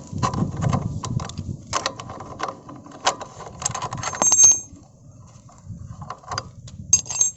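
A 22 mm spanner loosening the rear axle nut of a motorcycle: a run of metal clicks and knocks, with a bright metallic ring a little past halfway and again near the end.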